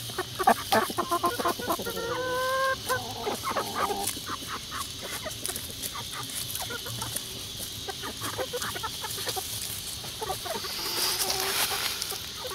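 Brown hens clucking in many quick short notes, with a drawn-out pitched call about two seconds in and another about three and a half seconds in. A steady high hiss runs underneath.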